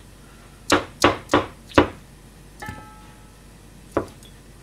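Kitchen knife chopping through shiitake mushrooms onto a plastic cutting board: a quick run of four sharp knocks, another stroke followed by a brief metallic ring, and one more knock near the end.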